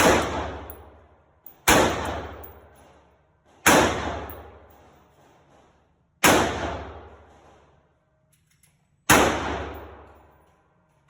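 AR-15 rifle in 5.56 fired five times in slow semi-automatic fire, the shots about two to three seconds apart. Each shot is a sharp crack that rings out for a second or two.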